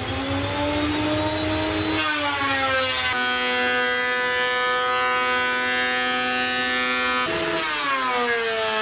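Ridgid benchtop thickness planer running with a loud whine as red oak boards feed through. Its pitch drops about two seconds in as the cutterhead takes the load, holds there, jumps back up briefly around seven seconds in as the board clears, then sags again with the next board.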